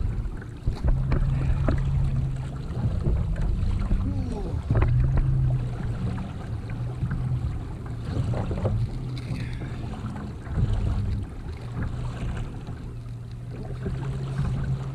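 Wind buffeting the microphone over water noise around a small kayak, with scattered short knocks.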